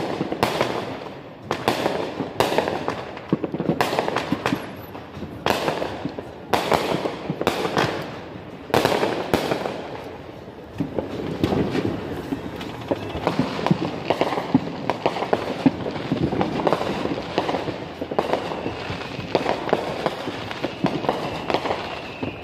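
Fireworks going off in a fast, uneven string of sharp bangs. After about ten seconds the big bangs give way to quieter, denser crackling.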